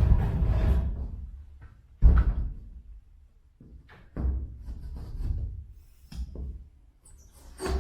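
Wall sheet being cut with hand-operated sheet cutters: about six separate cutting strokes, each starting sharply and fading quickly.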